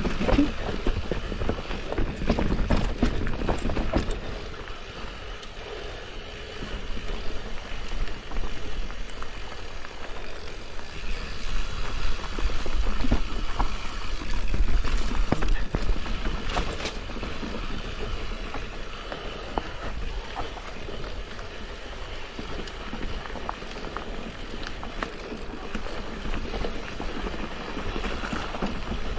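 Mountain bike descending a rough dirt trail: tyres rolling over soil and stones, with many small knocks and rattles from the bike. It runs louder and heavier for the first few seconds and again about halfway through.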